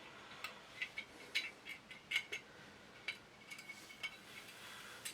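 Faint, scattered metal clicks and ticks of small Sjögren shotgun parts being handled and fitted together during reassembly.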